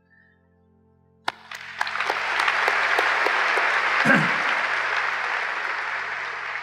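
Audience applause that starts about a second and a half in, holds steady, and dies away near the end, over faint steady background music.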